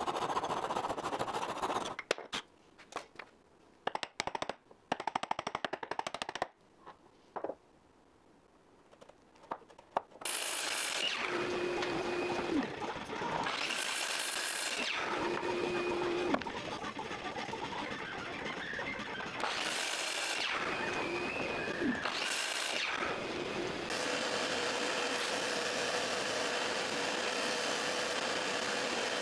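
A hand saw rasping through hardwood, then a few scattered sharp taps. A sliding miter saw follows, its motor spinning up, cutting and winding down about four times. A benchtop hollow-chisel mortiser then runs with a steady hum.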